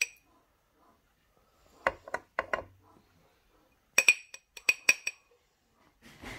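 A spoon clinking and knocking against a glass jar as strawberry jam is spooned into it: a sharp clink at the start, a few duller knocks about two seconds in, then a quick run of ringing glass clinks around four to five seconds.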